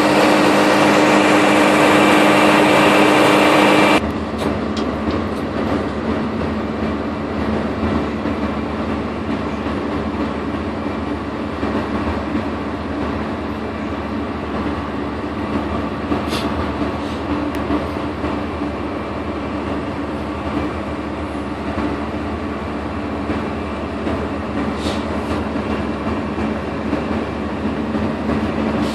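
ZJ50 drilling rig machinery running steadily. It is louder, with strong held tones, until it drops suddenly about four seconds in to a lower, rumbling running noise.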